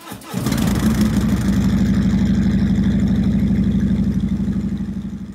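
Motorcycle engine starting, then running steadily with a loud, even pulsing exhaust beat that eases slightly near the end.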